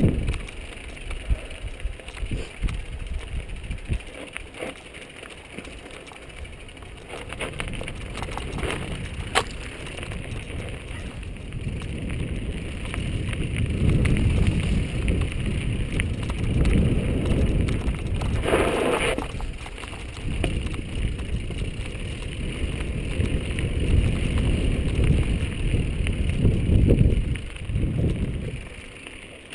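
Mountain bike riding down a dirt singletrack, heard from a camera mounted on the moving bike or rider: a low, surging rush of wind on the microphone and tyre rumble over the dirt, with scattered knocks and rattles from the bike. The rush grows louder in the second half.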